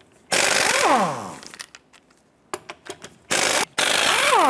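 Air impact wrench spinning lug nuts off a wheel with a 19 mm socket: a run of about a second, a few short blips, then another longer run near the end. Each run ends in a falling whine as the tool spins down.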